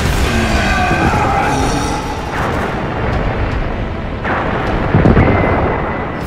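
Explosion sound effects from a giant-hero battle: a run of rumbling blasts, the loudest about five seconds in.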